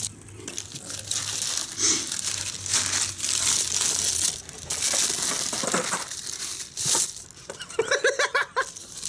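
Paper and plastic food wrapper crinkling and rustling close to the microphone, in irregular bursts. Near the end comes a short, pulsing laugh.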